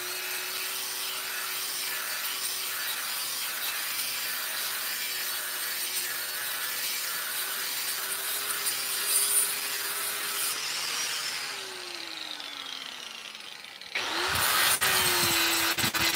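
Handheld power tool scouring a pitted metal disc: a steady motor whine over a scraping hiss. About twelve seconds in it winds down with a falling pitch, then near the end it starts up again, louder, and spins back up.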